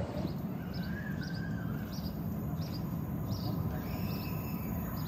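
Small birds chirping: short high chirps repeated roughly every half to three-quarters of a second, with a couple of longer, lower notes, over a steady low background rumble.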